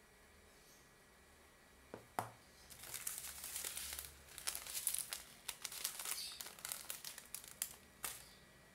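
Two sharp knocks, then a plastic packet of cornstarch crinkling and rustling as it is handled, for about five seconds.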